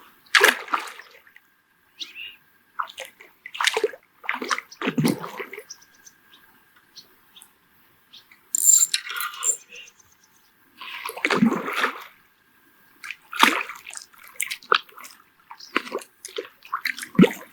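A hooked fish splashing and thrashing at the water's surface in irregular bursts as it is reeled in and fights the line.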